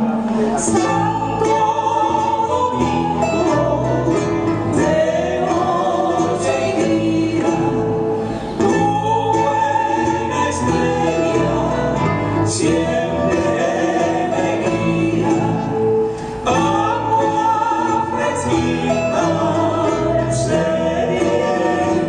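Canarian folk group playing: several voices singing together over strummed guitars.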